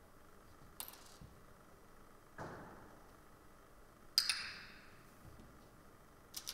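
A handheld training clicker clicking, loudest about four seconds in with a brief metallic ring, marking the learner's touch of the target object. A softer knock on the tabletop comes in between, and a quick double click near the end.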